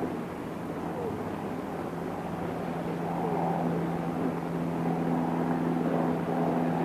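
A steady low hum of two held tones under a faint murmur of voices.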